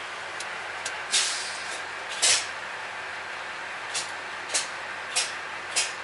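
A truck's air brake system hissing out air in about six short, sharp bursts over a steady background hiss. The last four bursts come in quick succession, a little over half a second apart.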